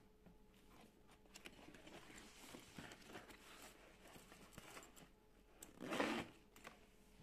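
Jute (burlap) tote bag handled by hand: faint rustling of the stiff woven fabric and small clicks from its zipper as the inner zip pocket is pulled open. A louder brief rustle comes about six seconds in.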